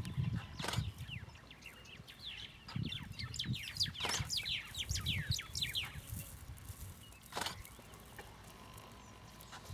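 Wild birds calling in the bush: a run of quick, high, downward-sliding chirps in the middle, with a few soft low thuds and clicks.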